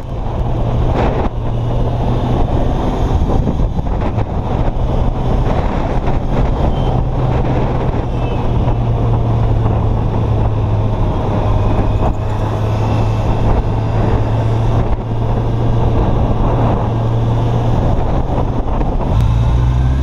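Motorcycle engine running steadily while riding, with wind rushing over the microphone. Near the end the engine note drops as the bike slows.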